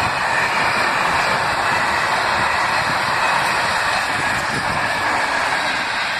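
Freight train of open-top gondola wagons passing, a steady loud rumble of wheels on the rails.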